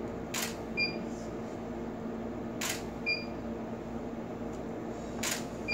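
Camera shutter firing three times, about two and a half seconds apart. Each shot is followed a moment later by a short high beep.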